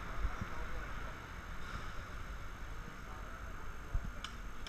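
Wind rumbling on the camera's microphone, with a faint background murmur and a few light clicks, the sharpest about four seconds in.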